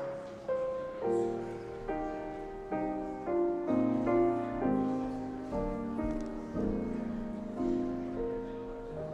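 Piano playing slow chords, a new chord struck about once a second and each fading away after it sounds.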